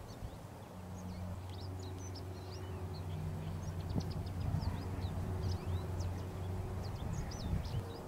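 Many small birds chirping, short quick high notes several times a second with no pause, over a steady low rumble and faint hum.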